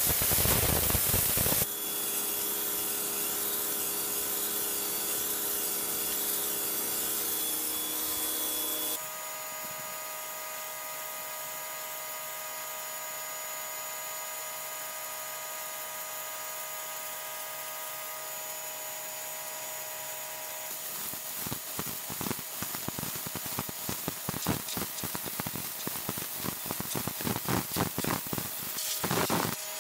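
Simoniz 1800 PSI electric pressure washer running: a steady motor-and-pump whine under the hiss of the water jet striking concrete paving slabs. It is loudest in the first two seconds and the whine changes pitch about nine seconds in. From about twenty seconds the spray turns spattery and uneven, rising and falling.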